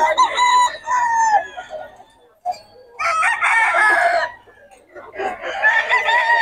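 Gamefowl roosters crowing: three long crows in a row, each lasting one to two seconds, with short pauses between them.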